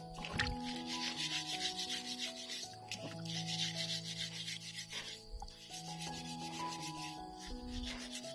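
A wire scouring pad scrubbing wet pieces over a basin of water, in several stretches of scratchy rubbing a second or two long, with short pauses between, over background music.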